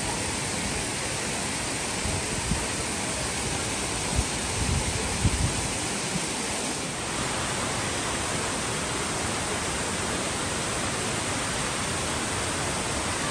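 Steady rush of flowing water, like a stream or small waterfall, with a few low thumps about four to five seconds in.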